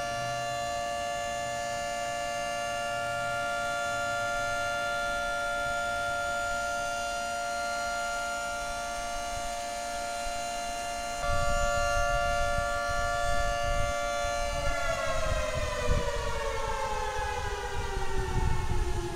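Outdoor warning siren sounding a steady, chord-like multi-tone wail, then winding down, its pitch sliding steadily lower over the last four or five seconds. A low rumble joins about eleven seconds in.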